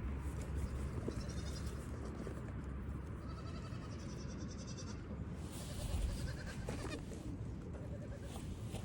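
Young goat kids bleating: several high-pitched calls, one after another, over a steady low rumble.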